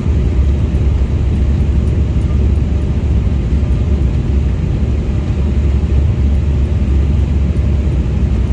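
Cabin noise of an Embraer 195-E2 airliner during the initial climb after takeoff: its Pratt & Whitney PW1900G geared turbofans at high thrust give a loud, steady low rumble, with airflow hiss over it.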